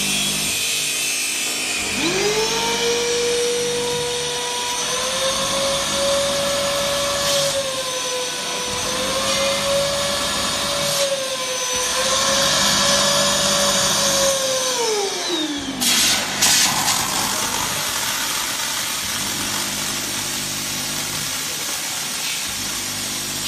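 An electric motor in the steam cleaner's lime-green unit whines up to speed about two seconds in, runs at a steady pitch with slight wavering, then winds down about two-thirds of the way through. A few sharp clicks follow, over a steady hiss of steam jetting from the wand's nozzle.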